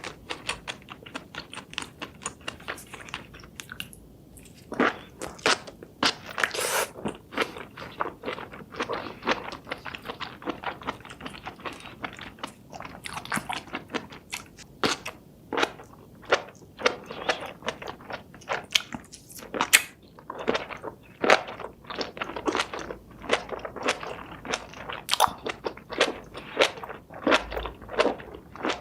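Close-miked eating of cooked seafood: crunchy bites and wet chewing, several crisp crackles a second, with a short pause about four seconds in.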